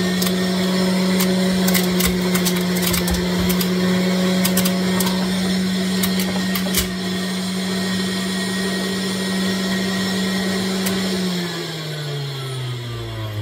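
Electric centrifugal juicer running with a steady motor hum while pomegranate arils are pushed through, with sharp crunching ticks during the first half. About eleven seconds in the motor is switched off and winds down, its pitch falling.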